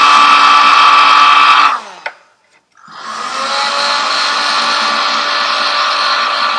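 Electric hot air gun running with a steady fan whine as it heats a piston to free a stuck gudgeon pin. About two seconds in it stops, winding down with a click, then starts again about a second later and runs steadily, a little quieter than before.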